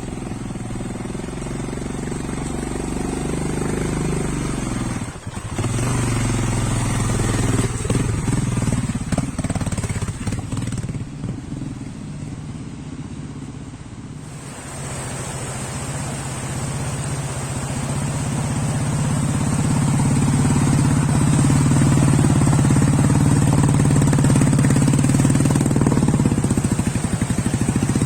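Motorcycle engine running under way, its note easing off briefly about five seconds in, then building up steadily and holding high in the second half.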